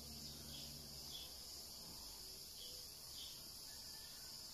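Faint background: a steady hiss and low hum, with soft high chirps recurring about every half second.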